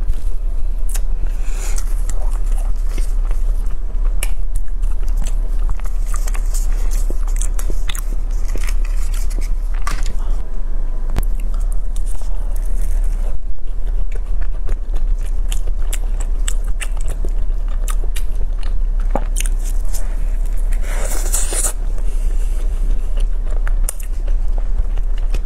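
Close-miked biting and chewing of an avocado-topped pastry tart: many small crackles and clicks from the crust, with a denser crunchy stretch about twenty seconds in. A steady low hum runs underneath.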